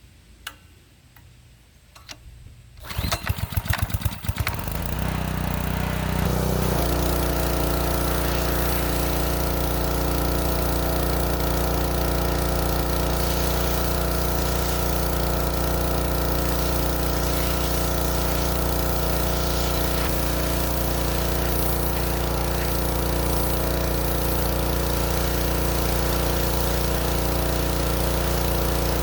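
Simpson MegaShot 3200 PSI gas pressure washer engine being pull-started: a few clicks, then about three seconds in the engine is cranked and catches. It settles within a few seconds into a steady, even run.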